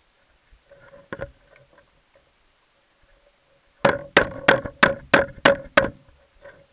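Seven sharp knocks in quick succession, about three a second, heard underwater, after a few faint scattered clicks and over a faint steady hum.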